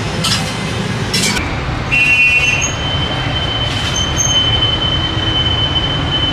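Road traffic rumbling, with a single high, steady squeal held for about four seconds from about two seconds in.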